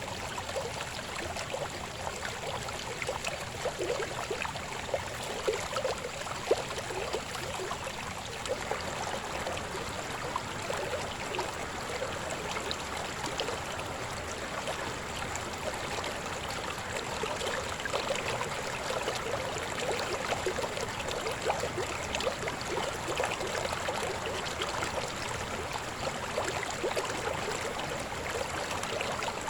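Babbling river flowing steadily, a continuous rush of water with many small splashes and gurgles.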